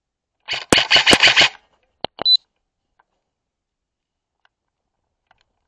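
Airsoft electric gun firing a rapid full-auto burst of about a second, followed shortly after by two or three quick single cracks.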